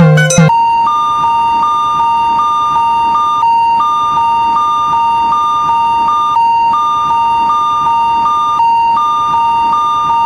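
Electronic railroad-crossing warning signal: one steady tone with a slightly higher tone pulsing on and off above it in short, even beats. A few plucked-string notes of music end about half a second in.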